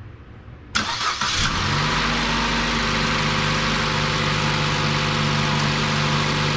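A 2014 Chevrolet Cruze's 1.4-litre turbocharged four-cylinder engine cranking briefly and starting about a second in, then settling into a steady idle. The engine has just had a new ignition coil and spark plugs fitted to cure a misfire on cylinder 4.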